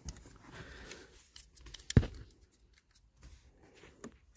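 Plastic dashboard trim and a wiring connector being handled: faint rustling, one sharp click about two seconds in and a lighter click near the end.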